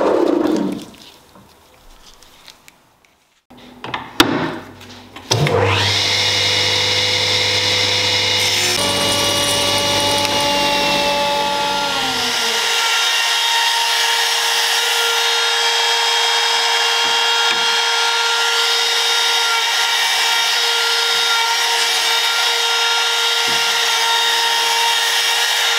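A spinning drill press winds down at the start; after a few clicks, a compact trim router starts about five seconds in and runs steadily at high speed, routing the edge of a wooden strip, its pitch dropping slightly a few seconds later.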